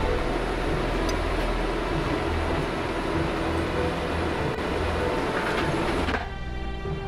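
Diesel engine and hydraulics of a Case crawler excavator running steadily under load as its long-reach demolition arm works a concrete crusher jaw. About six seconds in the sound cuts off abruptly and gives way to music.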